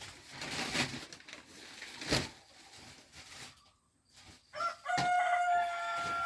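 Rustling and a couple of knocks, then, about four and a half seconds in, a bird's long call held on one steady pitch.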